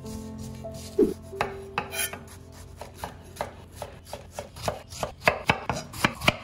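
Chef's knife chopping tomatoes on a wooden cutting board: a run of sharp strikes that come faster and louder toward the end. A single loud knock about a second in, as cling film is pulled off a steel bowl.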